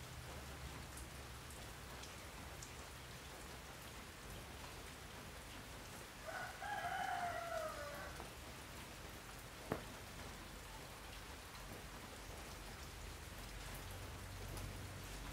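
A steady hiss of rain through the whole stretch. In the middle a rooster crows once, a drawn-out call of about two seconds that sags in pitch at the end, and a few seconds later there is a single sharp click.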